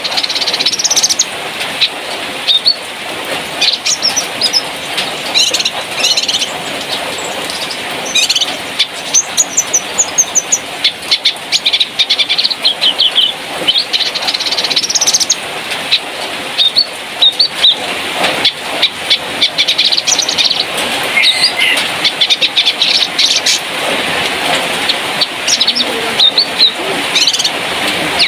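Cucak kinoi songbird chirping and twittering: rapid high notes and short trills in quick runs, with hardly a pause, over a steady background hiss.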